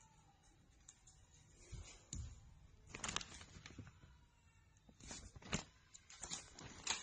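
Irregular clicks, knocks and light rustling of objects being handled, with the loudest knocks about three seconds in and a cluster near the end.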